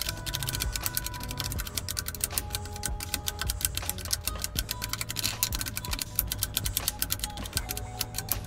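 Plastic tiles of a magnetic 6x6 sliding fifteen-puzzle clicking as they are slid rapidly back and forth to scramble it: a dense run of small clicks, several a second, with no pause.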